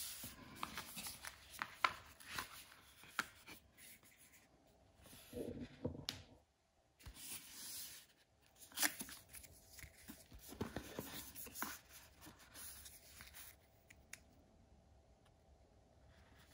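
Cardboard box, paper leaflet and plastic tool case being handled: irregular rustling, sliding and light clicks, tapering off near the end.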